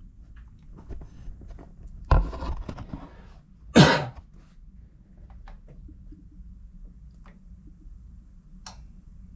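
A few clicks and knocks from hands working the pilot controls of a gas water heater while it is lit by hand, the loudest about two and four seconds in and a smaller click near the end, over a low steady hum.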